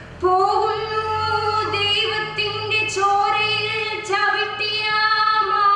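A girl's solo voice singing a Malayalam poem unaccompanied in the melodic padyam chollal recitation style, drawing each syllable out into long held notes.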